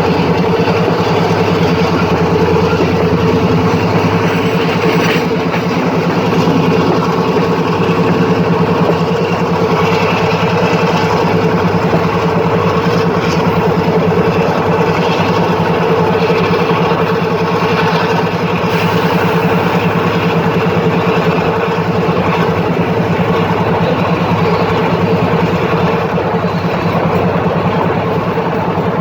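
Diesel-electric locomotive ZCUP-30 No. 6351's engine running at a steady, unchanging speed, a loud continuous drone.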